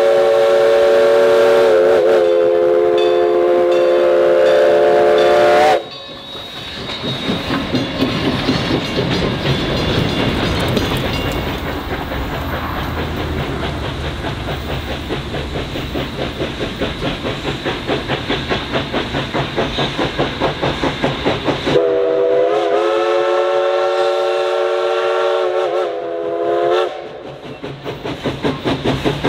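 Everett Railroad No. 11 steam locomotive blowing a long blast on its steam whistle, several tones sounding together, which cuts off sharply about six seconds in. The exhaust then chuffs at a steady beat of about two a second as the engine works toward the camera, before a second long whistle blast from about 22 s to 27 s and more chuffing.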